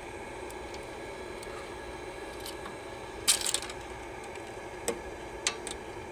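Small metallic clicks and snaps from needle-nose pliers and the encoder strip's tension spring as the strip end is hooked back on. A sharp cluster of clicks about three seconds in is the loudest, followed by two single clicks near the end, over a steady background hum.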